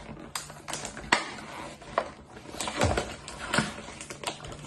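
Plastic food packaging being torn open by hand, with irregular crinkles and sharp clicks.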